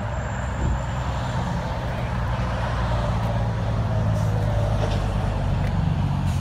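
Deep, steady rumble of V8 car engines idling at close range, growing slightly louder in the second half.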